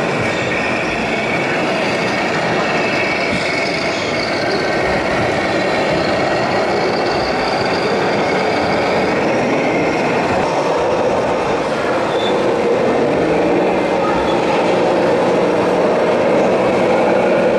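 Steady mechanical running noise from radio-controlled model machinery with small electric motors, mixed with the din of a busy hall. A new steady low drone sets in about thirteen seconds in.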